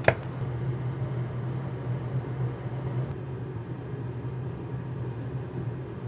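Steady low hum with a faint, even hiss, with no distinct knocks or events.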